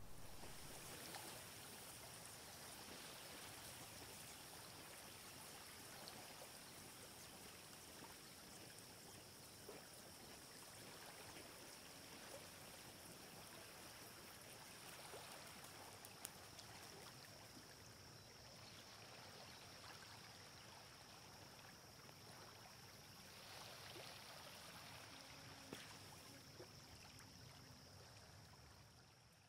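Near silence: a faint steady hiss with a thin high tone running through it.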